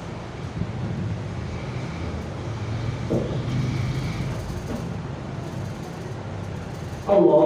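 A steady low rumble of background noise through a pause in the prayer. Near the end a voice suddenly starts chanting loudly: the taraweeh recitation resuming.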